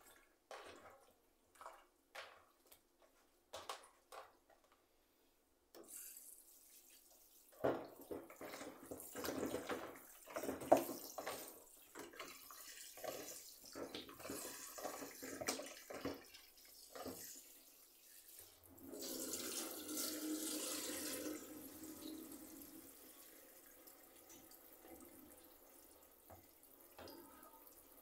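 A few light knocks and clicks, then a kitchen tap turned on about six seconds in: water running into a sink, with clatter and knocks of things being rinsed under the stream. The flow gets louder for a few seconds past the middle, then runs more softly.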